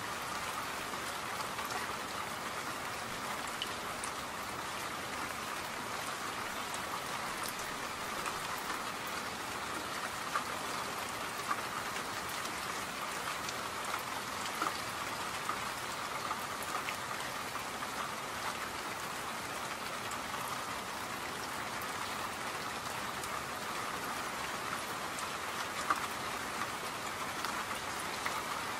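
Steady rain falling, an even patter of drops with a few louder single drops now and then.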